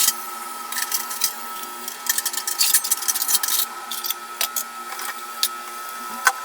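Objects being handled and set down, making a run of small clicks and clatters over a steady electrical hum.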